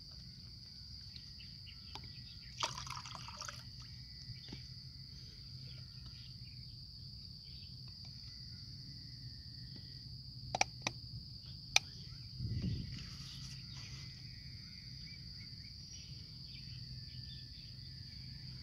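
A steady high insect drone, like crickets, under a few light handling sounds: a short splash of water about three seconds in, then a few sharp clicks and taps of the plastic net-pot lid against the glass jar rim about ten to twelve seconds in, followed by a soft bump.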